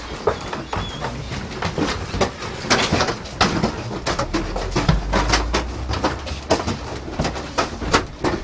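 Footsteps and shuffling of a group of people walking through a narrow corridor: a dense, irregular run of knocks and clicks, with a low rumble for a second or two about halfway.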